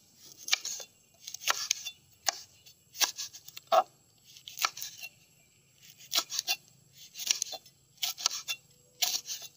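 Cleaver slicing red chili peppers on a wooden cutting board: short, sharp knocks of the blade on the board, often two close together, at irregular intervals.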